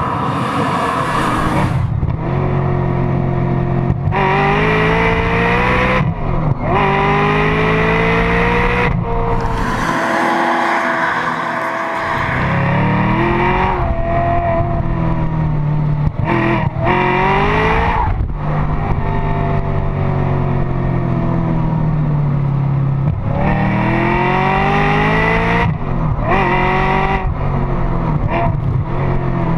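Maserati 4200 GT's 4.2-litre V8 being driven hard: the engine revs climb in pitch again and again, then drop sharply at each gear change or lift-off.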